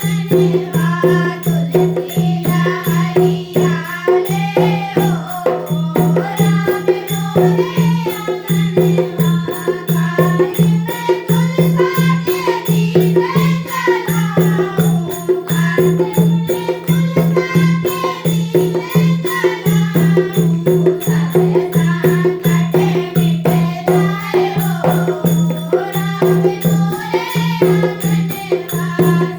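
Hindu devotional bhajan music: voices singing a folk-style melody over a steady, rhythmically pulsing accompaniment with rattling percussion.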